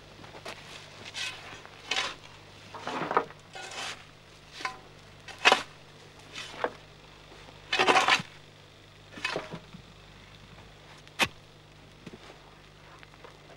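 Hand work on a smoking charcoal kiln's earth-and-charcoal cover: about a dozen irregular scraping and crunching strokes, with a sharp click late on.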